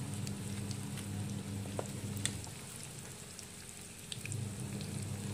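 Sliced onions and dried red chillies sizzling in hot oil in a small frying pan, with scattered crackling pops. A low steady hum underneath fades away a couple of seconds in and comes back near the end.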